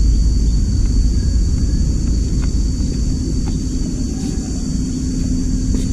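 Steady low rumble with a few faint light clicks. A low steady hum sets in about halfway through.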